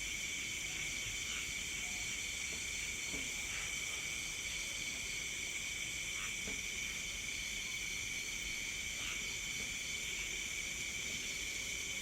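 Crickets and other night insects chirring steadily in several overlapping high pitches, with a few faint short chirps every few seconds.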